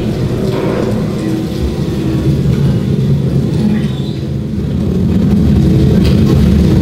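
Underwater hydrophone recordings played over loudspeakers as a live composition: a dense, loud low rumble with steady humming tones, swelling about five seconds in.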